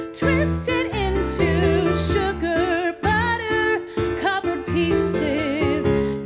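A woman singing a musical-theatre song with vibrato over a recorded backing track.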